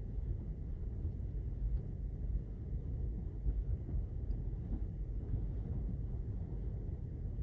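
Steady low rumble on board a car ferry under way, an even drone with no distinct events.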